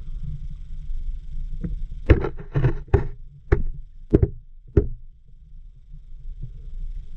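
Muffled low rumble of water heard through a camera submerged in a river. A quick run of about seven hard knocks, two to five seconds in, as something strikes the camera or its housing.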